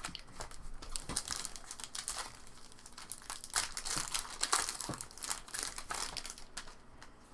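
Foil wrapper of a trading-card pack crinkling and tearing as it is ripped open and crumpled, in a dense run of irregular crackles that dies down near the end.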